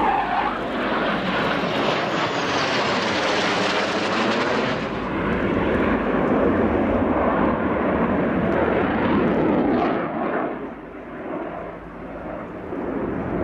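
Jet noise from Dassault Rafale fighters' twin Snecma M88 turbofans as they fly past overhead, a loud, continuous roar. It turns duller about five seconds in and eases off after about ten seconds.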